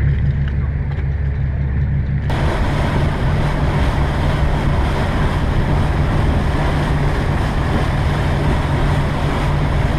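Motorboat engine running with a steady low drone. About two seconds in, the sound changes abruptly to a loud, steady rush of wind and water wash from the boat under way, with the engine hum still beneath it.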